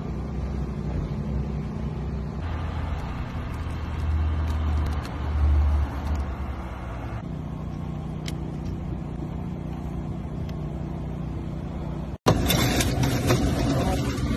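A steady low mechanical hum that changes character twice. After a sudden cut near the end it gives way to a louder, noisier clatter.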